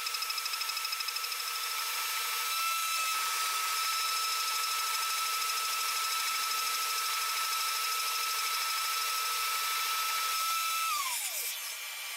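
CNC spindle milling aluminium plate with a single-flute end mill: a steady high-pitched whine, pulsing fast at first, then even. About eleven seconds in, the whine falls in pitch as the spindle spins down.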